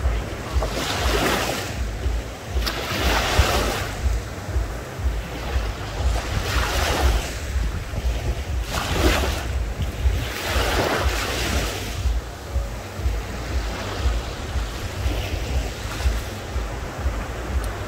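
Small sea waves breaking and washing up the shoreline close by, a surge of surf every few seconds, with wind buffeting the microphone in a constant low rumble.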